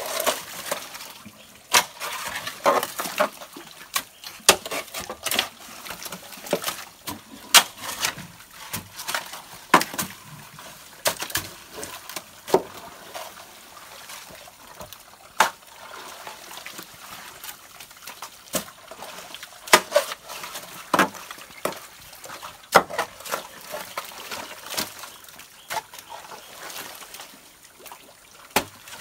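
A hoe chopping into waterlogged mud and clay with irregular sharp strikes, one or two a second, along with wet squelches and splashes of muddy water.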